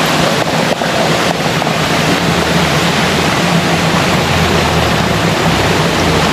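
Steady rush of stream water, with a low engine drone joining underneath about two seconds in.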